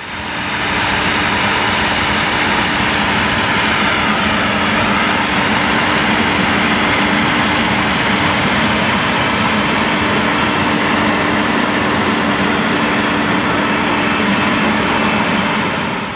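Challenger MT755E rubber-tracked tractor working under load, pulling a Lachaud cultivator through ploughed soil: a steady engine drone with a constant hum, fading in over the first second.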